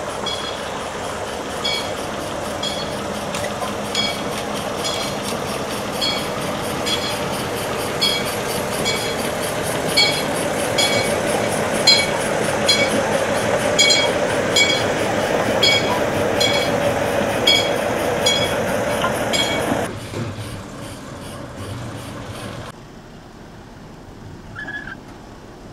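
Locomotives moving slowly along the track, a steady rumble with a sharp metallic clink about every second. The sound drops away suddenly about twenty seconds in, leaving a much quieter background.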